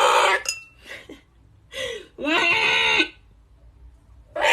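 Parrot calling: a loud, harsh squawk at the start and another near the end, with warbling, voice-like calls that bend up and down in pitch in between.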